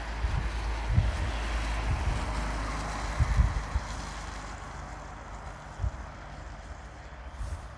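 A taxiing C-130J Hercules' Rolls-Royce AE 2100 turboprops running as a distant, steady rush that fades over the second half. Wind buffets the microphone in low thumps, the loudest a little over three seconds in.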